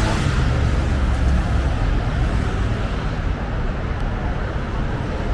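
City street traffic noise: a steady low rumble of vehicle engines and tyres on the road.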